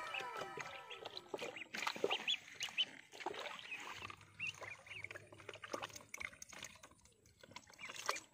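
Ducklings peeping while water splashes in a plastic tub as they jump in and paddle about: short splashes and thin, brief peeps.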